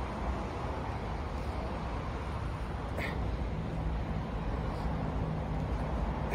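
Steady rumble of road traffic, with two short high chirps, one about three seconds in and one near the end.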